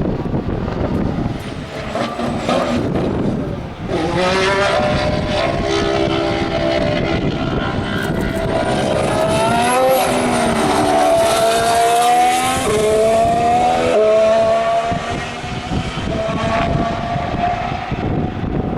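2014 Formula One car's 1.6-litre turbocharged V6 accelerating hard, its pitch climbing and dropping back in steps at several quick upshifts. Before that there is a few seconds of noisy rush.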